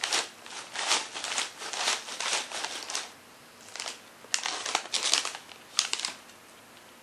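A plastic snack bag of pretzel chips crinkling as it is handled: a dense run of rustling for about three seconds, a short lull, then a few sharper crinkles.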